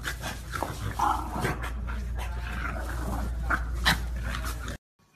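French bulldog making short excited vocal sounds while it plays, mixed with scuffs and knocks, over a steady low hum. The sound cuts off suddenly near the end.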